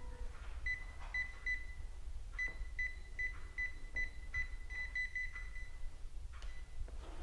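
Mobile phone keypad beeping as its keys are pressed: well over a dozen short, high beeps at an uneven pace, with a brief pause about two seconds in.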